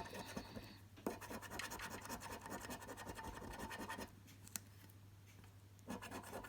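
Rapid scratching on a scratch card's coating, dense quick strokes that stop about four seconds in. After a pause with one small tick, the scratching starts again near the end.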